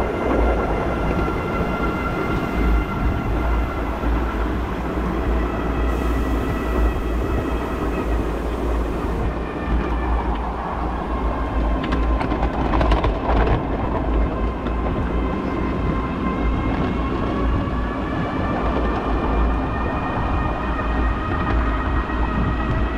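Ride-on miniature railway train running along the track, a steady rumble with a whine that drops in pitch midway and climbs again as it picks up speed. A short run of clicks about halfway through, wheels over rail joints.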